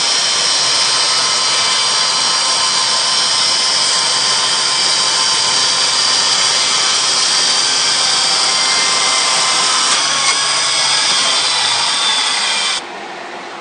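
Snik 10 hp electric chainsaw mill ripping a pine log lengthwise: the electric motor and chain run steadily under load, with several high tones over the cutting noise. Near the end the sound drops abruptly.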